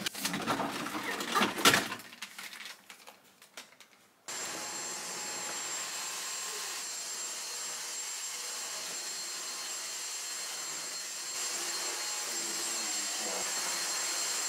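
A few knocks and clatters, then about four seconds in a Dyson cordless stick vacuum cleaner switches on and runs steadily with a high whine.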